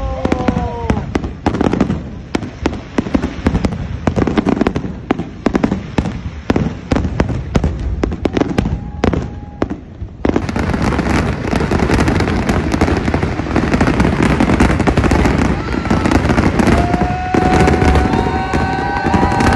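Fireworks going off: many sharp bangs in quick succession, then about halfway a denser, continuous crackling of bursts. A long held tone rises above it near the end.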